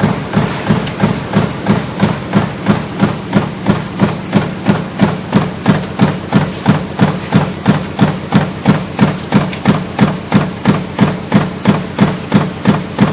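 Power press running a ceiling fan stamping die continuously, its strokes coming evenly at about three a second, each stroke a sharp clank over a steady machine hum.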